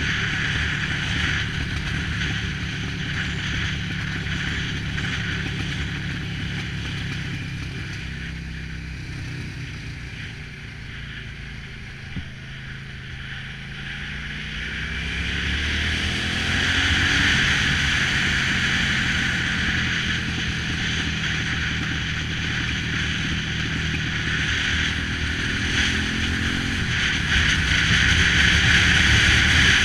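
Cruiser motorcycle engine running on the move, with wind rushing over the microphone. The engine drops lower and quieter about a third of the way in, then its pitch rises over a few seconds as it picks up speed and the wind grows louder.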